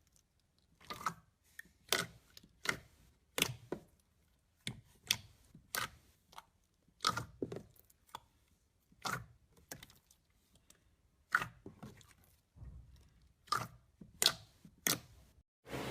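Slime being pressed and worked by hand, giving a string of sharp crackles and pops at irregular intervals, about one or two a second.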